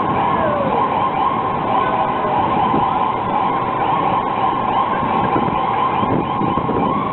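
Ambulance siren sounding without a break over the noise of road traffic.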